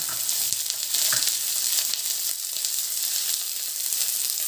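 Chopped onions sizzling in hot oil with cumin seeds and green chillies in a steel kadhai: a steady frying hiss.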